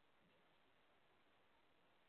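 Near silence: only the faint steady hiss of the recording.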